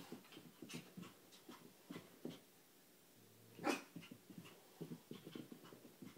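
Maltese dog scampering and bouncing on carpet: a quick run of faint soft thumps and scuffs, with light panting. One sharper, louder sound comes about three and a half seconds in.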